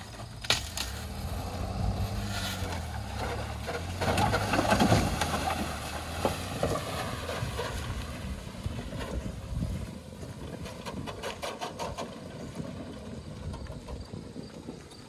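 Pickup truck engine revving under load as it tows a wrecked pickup on a kinetic recovery rope, loudest about four to five seconds in and easing off after about ten seconds.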